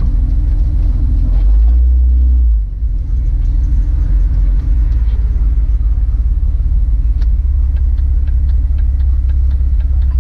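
Car being driven, heard from inside the cabin: a steady low engine and road rumble that swells briefly about two seconds in.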